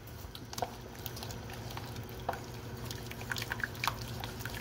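Wire whisk working a flour-and-oil roux loosened with hot beef stock in a bowl: a soft wet stirring with irregular light ticks of the whisk wires against the bowl, over a steady low hum.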